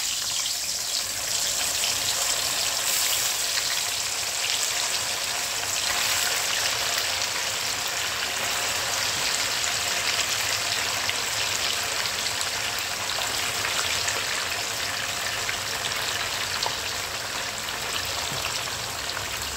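White tofu cubes deep-frying in hot oil in a wok: a steady, even sizzle of bubbling oil.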